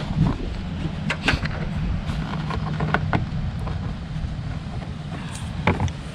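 A low, steady vehicle-engine hum runs underneath a few short, light clicks as the plastic tag-light lens and its bulb are handled and pressed into the housing.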